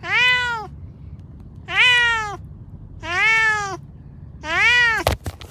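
A stressed domestic cat meowing four times, each meow about half a second long and rising then falling in pitch, roughly a second and a half apart. A few sharp clicks follow near the end.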